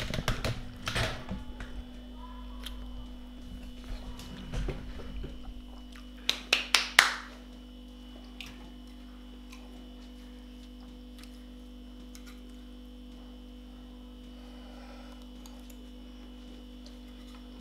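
Kitchen utensils scraping and clinking against a metal baking tray and plate as food is served, ending in a quick run of four sharp clatters about six to seven seconds in. After that, only a steady electrical hum.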